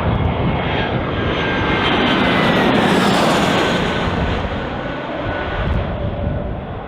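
Airbus A319 jet airliner passing close by with engines running. The noise swells to a peak about three seconds in, with a faint high whine that slides down in pitch as it goes by, then eases off.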